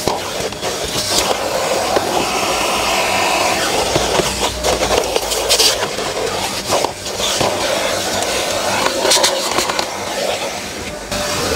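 Vacuum cleaner running with a steady noise while its nozzle is worked over car interior surfaces, with repeated scrapes and knocks throughout.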